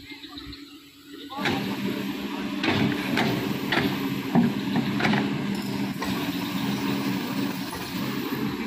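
Kobelco hydraulic excavator's diesel engine running, getting louder about a second and a half in as the arm works, with a few sharp knocks of the steel bucket in the soil.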